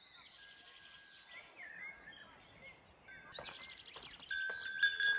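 Small birds chirping and trilling over faint outdoor background noise. About four seconds in, louder chime-like background music comes in with a steady ringing note and sharp, regular strikes.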